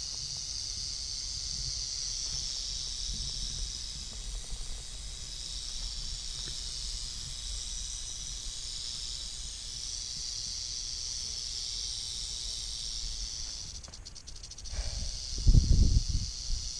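Rattlesnake rattling, a steady high buzzing hiss from the brush behind the rocks. Loud low bumps and rumbles break in near the end.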